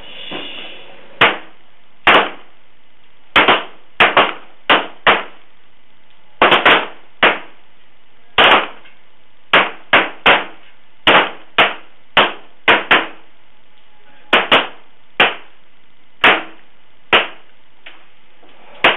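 Pistol shots from a line of competitors firing 1911 .45 ACP and M9 9mm service pistols during a timed-fire string of five shots in 20 seconds each. There are about thirty sharp reports at uneven spacing, sometimes two or three close together as shooters overlap.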